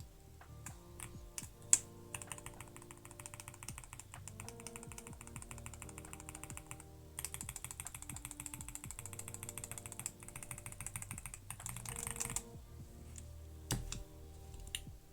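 Mechanical keyboard with factory-lubed linear switches that have ball-bearing rollers in the stem and base, being typed on in a fast, dense run of key presses. A few single presses come first, then continuous typing with a short pause about halfway, and a couple more presses near the end.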